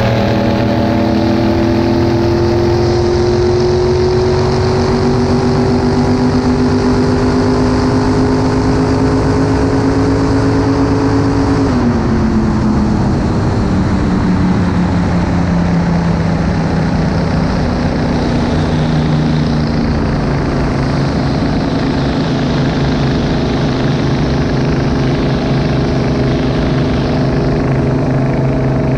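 1972 Sanger shovelnose hydroplane's engine running under way, heard from on board. The revs climb steadily for about the first twelve seconds, then drop off and settle at a steadier, lower pitch, rising slightly again near the end.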